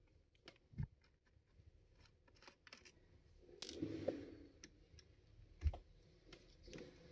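Faint handling noises from a laptop being taken apart: scattered small plastic and metal clicks, a short scraping rustle midway, and two soft knocks, one about a second in and one late.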